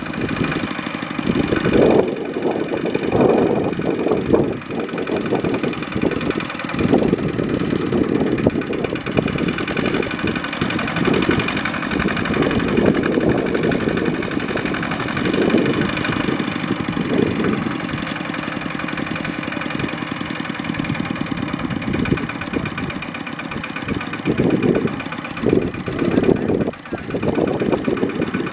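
Kubota diesel tractor engine running, its sound surging and easing again and again as the load changes.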